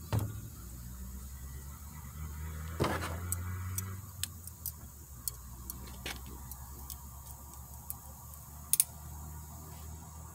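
Light clicks and a brief rustle of hands handling a chainsaw, over a steady low hum. The rustle comes about three seconds in; the clicks are scattered and faint.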